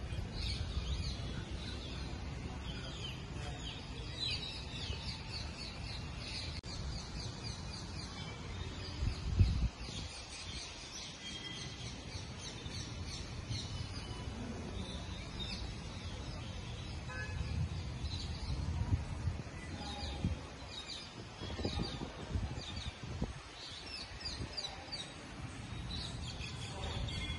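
Many small birds chirping and twittering over a steady low rumble of outdoor background noise, with one brief loud bump about nine and a half seconds in.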